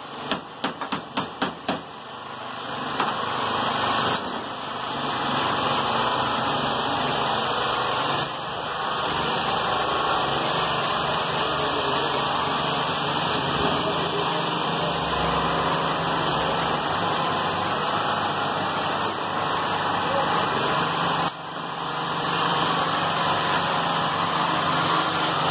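A motor running steadily with a low, even hum, after a quick run of clicks in the first couple of seconds.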